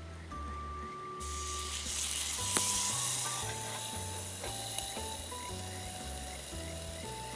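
Food sizzling in a hot pan: a loud frying hiss starts suddenly about a second in and keeps on steadily, with one sharp click partway through. Soft background music plays underneath.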